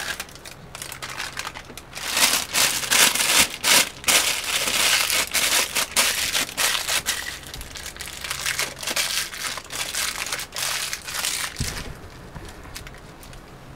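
A plastic piping bag crinkling and crackling as it is handled, in dense rapid bursts that die away a couple of seconds before the end.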